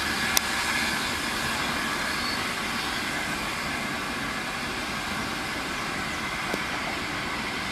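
BR Standard Class 8P three-cylinder Pacific No. 71000 Duke of Gloucester working steam, a steady rushing roar with no distinct exhaust beats, easing off slightly. A sharp click about half a second in.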